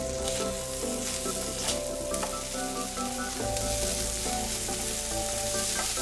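Rice sizzling as it toasts in hot oil in a pan, stirred with a few sharp clicks of the utensil against the pan.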